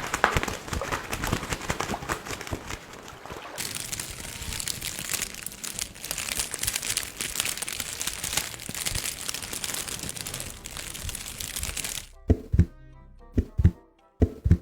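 Dense, fast crackling and crumpling, like material being crushed or crinkled for a sound effect, which stops abruptly about twelve seconds in. A few separate heavy thumps follow over faint music.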